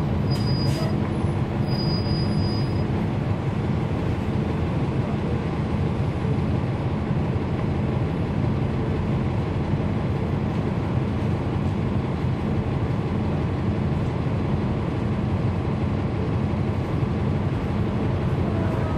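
Cummins ISL9 inline-six diesel engine of a 2011 NABI 40-SFW transit bus running steadily under way, heard from inside the bus.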